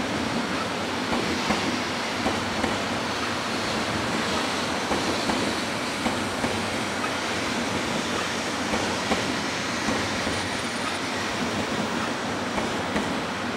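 Shinkansen bullet train rolling slowly past on the rails: a steady rumble with irregular clicks of the wheels over rail joints.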